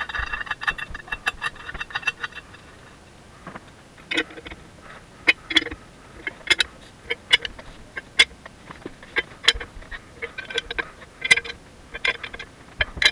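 Metal clicking and clinking of a wrench turning nuts down threaded rods, drawing a part down into a hydraulic swing cylinder. A quick run of ringing clicks comes first, then separate sharp metallic clicks about once or twice a second.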